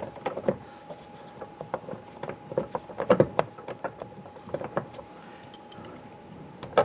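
Light, irregular metallic clicks and taps of a Torx bit and extension turning as a door handle bolt is threaded in by hand.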